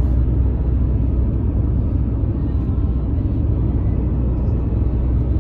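Steady low rumble of a car driving on an asphalt road: engine and tyre noise heard from inside the cabin.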